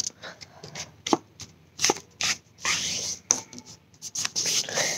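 Sheet of paper being folded and creased by hand: rustling with a few sharp crackles.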